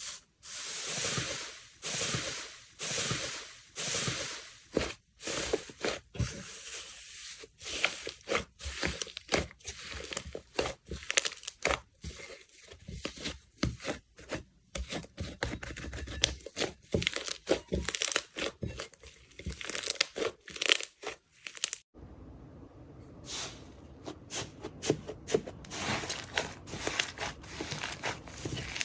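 Slime being squeezed and stretched by hand: quick, irregular sticky crackles and pops. About two-thirds through, the sound drops out for a moment, then comes back softer with a faint steady high whine.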